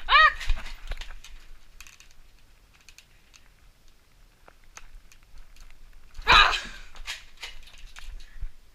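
Scattered light clicks and knocks of movement and plastic toy-blaster handling during a Nerf game, with a short high cry at the very start and one loud, brief, noisy burst about six seconds in.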